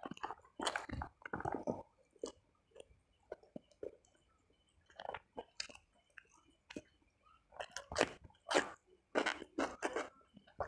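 Close-up mouth sounds of chewing and biting food eaten by hand: rice, spicy meatballs and raw cucumber. The chewing comes in irregular bursts, busiest in the first two seconds and again over the last three, sparser in the middle.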